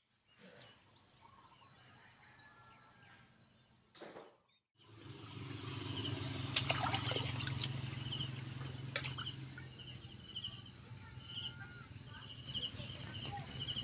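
After a quiet first few seconds, insects chirp in a steady, evenly pulsing chorus. Over it come scraping and a few brief knocks from a stiff brush and a knife cleaning a muddy ube (purple yam) tuber over a basin of water.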